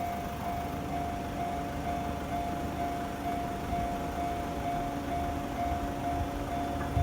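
Japanese railway level crossing warning bell ringing steadily, about two rings a second, over a low rumble. A lower steady hum joins about a second in.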